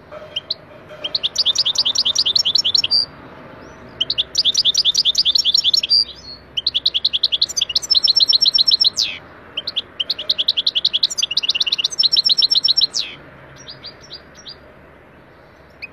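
European goldfinch singing in four rapid-fire runs of fast repeated, trilled high notes, each lasting two to three seconds. Two of the runs end in a falling glide. A few scattered chirps follow near the end.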